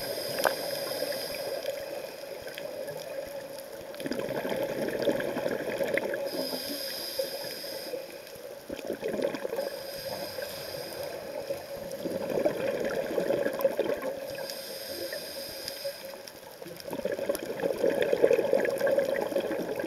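Scuba diver breathing through a regulator underwater: a hiss on each inhale and a bubbling rush of exhaled air on each exhale, in slow cycles several seconds long.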